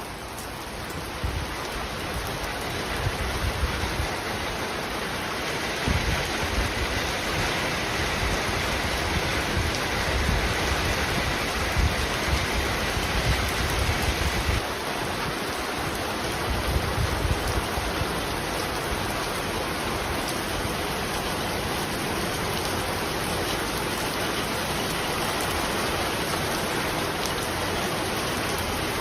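Steady rain falling, a continuous even hiss. Irregular low rumbles sit under it through the first half and stop about halfway.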